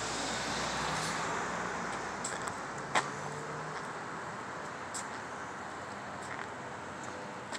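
Street traffic noise that swells over the first two seconds, as of a car passing, then eases off, with a sharp click about three seconds in.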